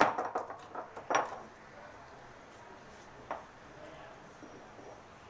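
Stone roller of an ammi grinding stone knocking on garlic cloves against the stone slab to crush them: a few quick knocks at the start, a sharper knock about a second in, and a single knock a little after three seconds, then quiet.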